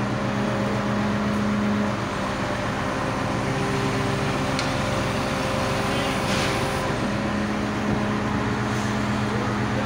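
Mobile crane truck's diesel engine running at a steady speed, an even low hum, with a brief click about halfway through.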